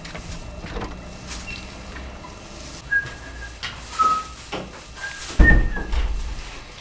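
A few short, high whistled notes and light clicks of steps and a door handle, then a wooden front door is pushed shut with a heavy thud about five and a half seconds in.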